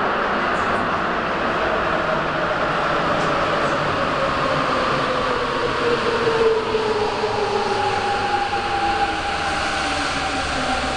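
Subway train pulling into an underground station and slowing, a steady rumble of wheels on rail with a whine that falls steadily in pitch as it decelerates.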